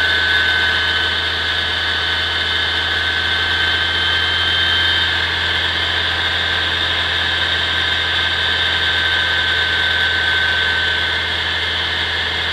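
Bus engine running steadily at idle, turning the drive belt over an idler pulley assembly to the air-conditioning compressor. It is a constant hum with a steady high whine over it.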